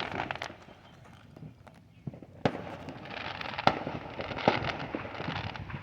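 Fireworks going off: a sharp bang about two and a half seconds in, then a run of crackling with scattered pops and bangs.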